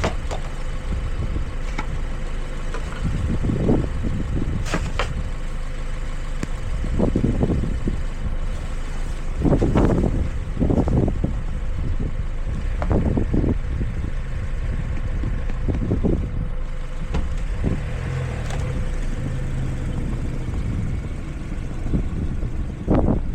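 Car running with a steady low rumble, broken by several short dull thumps.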